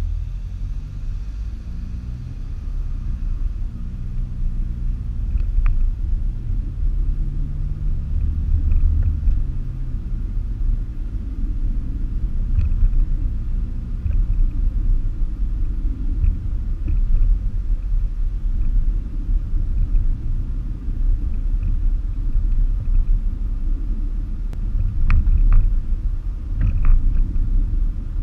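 Car engine and road rumble heard from inside the cabin while driving. The engine note rises and shifts over the first ten seconds, then settles into a steady low rumble, with a few faint clicks near the end.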